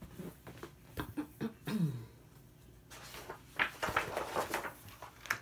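A hardcover picture book being opened and its pages turned: paper rustling and flapping with small knocks, busiest in the second half. A brief falling hum of voice comes about two seconds in.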